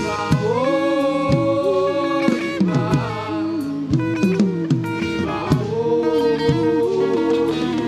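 Live gospel worship music: a voice holds long sung notes that glide from one pitch to the next, over instrumental backing and drum hits.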